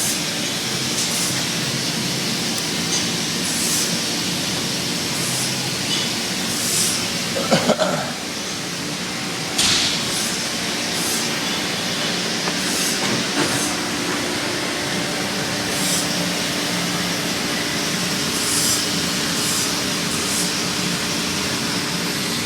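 Steady drone of running machinery in a machine shop, with a steady hum and faint regular hissing, broken by a short clatter about seven seconds in and a sharper knock a couple of seconds later.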